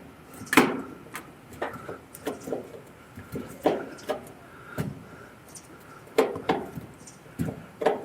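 Screwdriver tightening a screw into a dryer's sheet-metal door, with irregular sharp clicks and knocks of metal on metal, roughly one a second, some ringing briefly.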